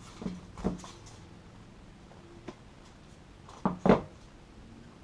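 A small cardboard box being handled among foam packing peanuts: a few light knocks and rustles, then a louder double knock near the end as the box is set down on the table.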